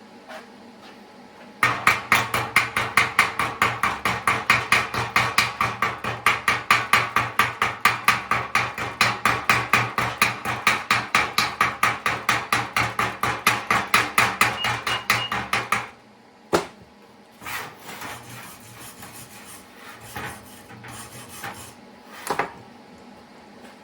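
Stick welder arc burning with a rapid, regular crackle over a low electrical buzz as an old nut is welded onto a sheared-off bolt; it stops suddenly about 16 seconds in, leaving a few scattered clicks.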